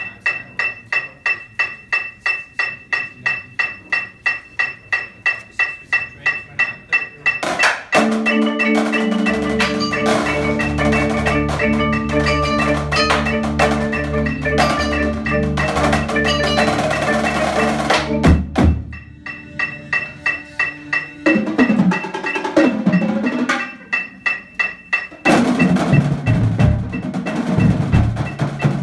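Percussion ensemble playing. It opens with a steady tapping pulse of about four strokes a second. A quarter of the way in, marimbas, drums and other mallet instruments join with sustained pitched notes. The band drops back to the tapping pulse after the middle and comes in again in full near the end.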